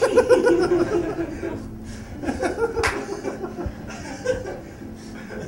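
People laughing in fits. It is loudest right at the start and picks up again about two and a half seconds in.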